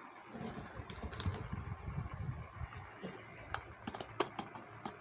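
Plastic Rubik's cube being turned by hand: a run of irregular quick clicks and clacks as the layers turn, with low handling noise in the first half.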